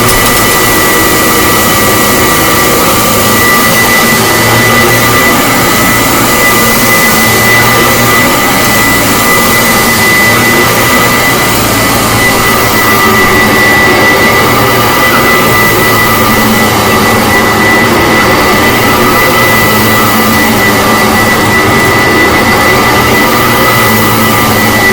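A 1975 Kirby Classic Omega upright vacuum cleaner running steadily while vacuuming, loud, with a steady high whine over the motor and fan noise.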